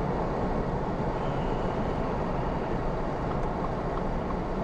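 Steady road and engine noise heard inside a car's cabin while driving in the rain, with a few faint ticks in the second half.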